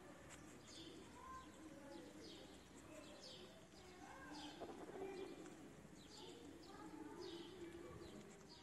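Faint bird chirping: short, high, falling notes repeated irregularly about once a second, over a low, faint wavering sound.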